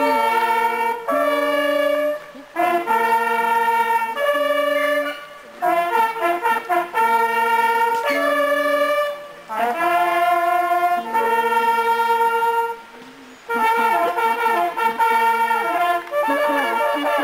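Brass music: a horn melody of long held notes in short phrases, with brief breaks between the phrases.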